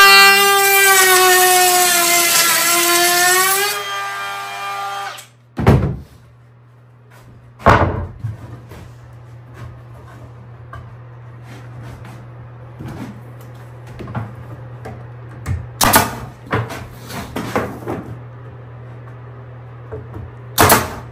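A power saw runs with a high whine that sags in pitch about two and a half seconds in as it cuts through a board, then winds down. Afterwards there are several sharp knocks of wood being handled, over a low steady hum.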